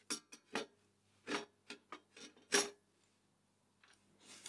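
A handful of separate light clicks and knocks from a PC case's removable drive cage being handled and slid into position, the loudest about two and a half seconds in.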